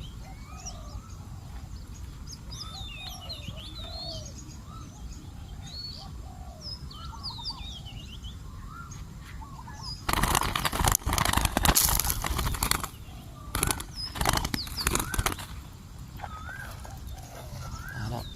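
Small birds chirping and calling, then about ten seconds in loud, flurried bursts of dove wings flapping for several seconds, in two spells. This is the agitated flapping of a spotted dove at the decoy trap.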